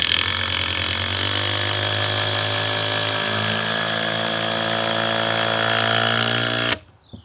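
DeWalt DCF787 20-volt brushless impact driver hammering a 6-inch lag screw into stacked boards, running without a break for about seven seconds and cutting off sharply near the end as the lag sets. Its pitch shifts about three seconds in as the load builds; the driver has to work hard to set the long lag.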